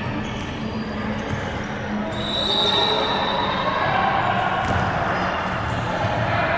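A ball bouncing on a hard indoor court amid general hall noise, with a steady high tone about two seconds in that lasts about a second.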